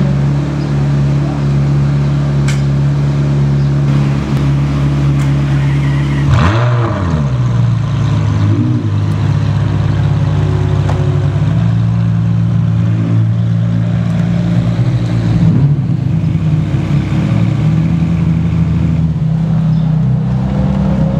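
Ferrari 599 GTO's V12 engine idling, with one sharp rev blip about six seconds in and a few smaller blips after it, then revving up as the car pulls away near the end.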